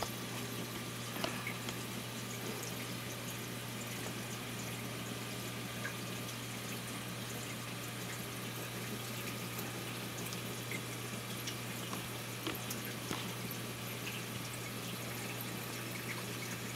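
Reef aquarium running: moving water hissing steadily over a constant low hum from the tank's circulation pumps, with a few faint drips and ticks.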